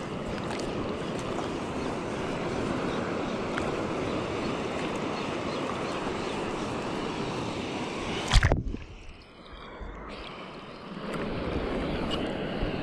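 Steady rush of surf and wind at the shoreline. About eight seconds in, one sharp knock, then a couple of seconds of quieter, muffled sound before the rush comes back.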